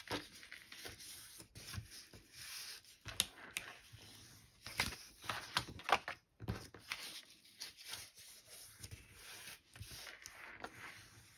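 Sheets of scrapbooking paper being leafed through and handled: faint rustling with irregular soft swishes and taps.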